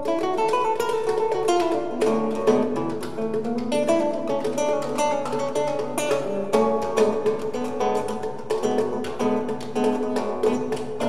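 Acoustic guitar playing a busy run of quickly plucked notes, with hand-drum percussion and bass clarinet in a live trio.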